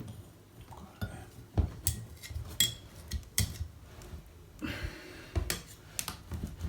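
Hand tools and metal parts clinking and knocking in a string of sharp, irregular taps as a plumber undoes a fitting to get at a bath leak.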